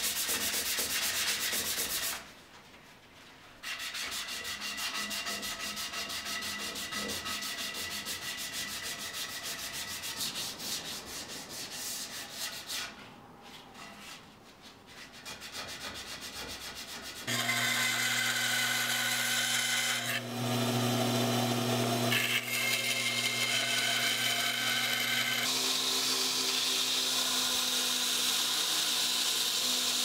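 Sandpaper rubbed by hand along a wooden axe handle, stopping twice for a moment. About two-thirds of the way in it gives way abruptly to a belt grinder motor running steadily, with work pressed against the belt.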